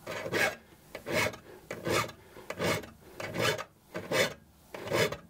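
A steel hand file is pushed across the teeth of a Japanese ryoba saw, making even rasping strokes a little more than once a second, about seven in all. The strokes sound real smooth: the sound of the filing changes as the tooth becomes sharp and smooth.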